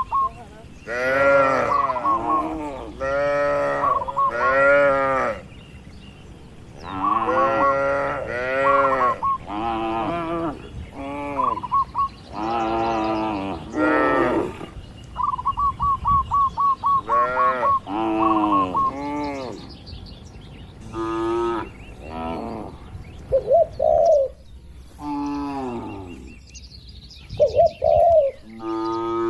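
Herd of cattle mooing, about a dozen long calls one after another, some overlapping. Between the moos a bird chirps in quick runs of short, even-pitched notes.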